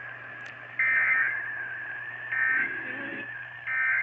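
Electronic alarm beeping at an even pace, each short beep about a second and a half after the last, over a steady high whine and a low electrical hum.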